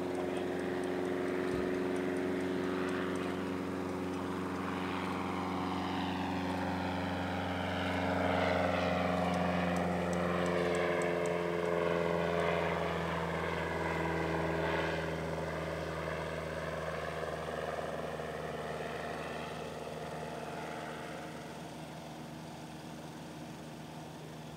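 Piper Cub floatplane's engine and propeller droning as it flies past, growing louder toward the middle, dropping slightly in pitch as it goes by, then fading as it climbs away.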